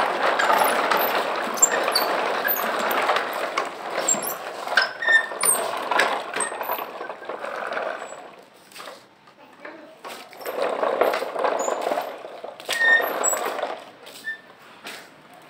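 A child's ride-on toy tractor and its two towed toy trailers rolling and rattling over brick paving. The rattle runs for about eight seconds, drops away for a couple of seconds, then comes back for a few seconds near the end.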